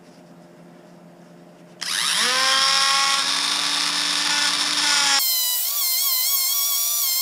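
Cordless Dremel rotary tool with a right-angle attachment spinning up about two seconds in, then running at high speed as its small disc works the edge of a plywood part. Its whine wavers in pitch near the end as the disc meets the wood.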